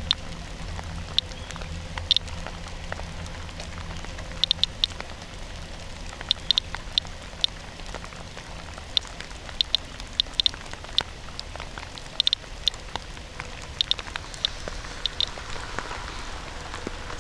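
Radiation Alert Inspector Geiger counter chirping at random intervals, short high beeps about two a second, some in quick pairs. Each chirp is one detected radiation count. Steady rain noise runs underneath.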